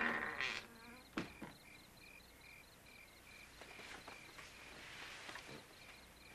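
Cricket chirping in a steady rhythm, about two to three short high chirps a second. A single short click comes about a second in.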